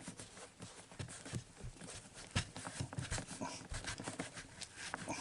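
Irregular light clicks and knocks of hand tools being picked up and a screw being fitted with a screwdriver.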